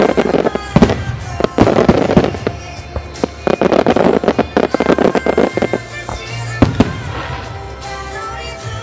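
A starmine barrage of aerial firework shells bursting in quick, irregular succession, with music playing underneath. The bangs come thick and fast for the first five seconds or so, then thin out to a few single bursts, one standing out near the middle of the quieter stretch.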